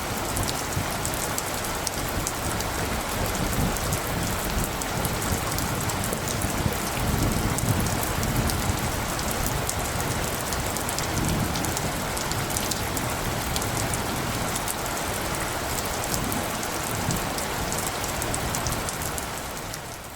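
Steady storm ambience: a dense, even hiss sprinkled with many fine ticks, over a low rumble that swells now and then in gusts. It fades out near the end.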